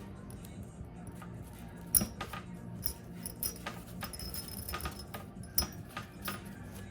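Light metallic clicks and ticks of steel piston rings being worked by hand into the grooves of a Honda D16 piston, without a ring spreader. Two clicks, about two seconds in and near the six-second mark, stand out as the loudest.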